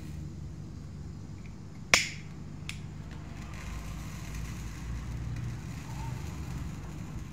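A single sharp click about two seconds in, with a brief ringing tail, then a fainter click under a second later, over a low steady hum.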